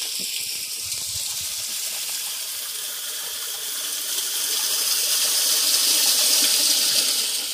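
Water falling and splashing down a small cascade in a stone channel: a steady rushing that swells somewhat louder past the middle and eases near the end.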